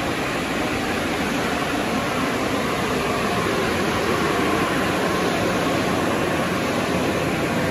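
Steady rushing noise of automatic car wash tunnel equipment running, even and unbroken.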